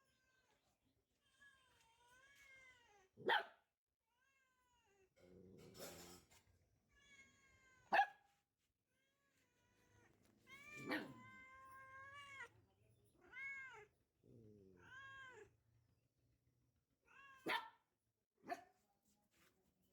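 A cat yowling and meowing again and again in drawn-out, wavering cries, with a hiss and low growls in between, and a few short, sharp, loud outbursts. These are the sounds of a cat fending off a Rottweiler puppy in a squabble.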